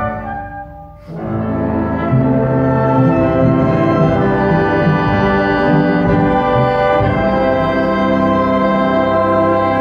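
Live mixed ensemble of cellos, double bass and guitars with other players performing a new composition in sustained chords. The sound thins out and drops just after the start, then the full ensemble comes back in about a second in and holds loud chords.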